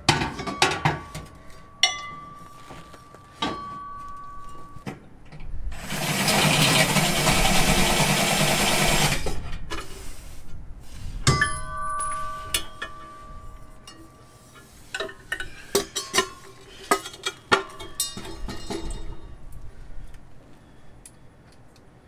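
Metal clinks and knocks of tools and hardware, several ringing briefly, while a power drill runs for about three and a half seconds partway through.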